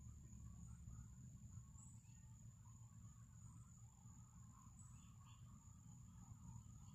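Near silence, with a faint, steady high-pitched trill of crickets holding one tone throughout, over a low background rumble.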